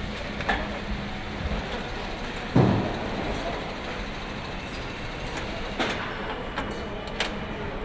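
Car assembly plant noise: a steady mechanical hum and hiss with scattered sharp metallic clicks, and one loud heavy thud about two and a half seconds in.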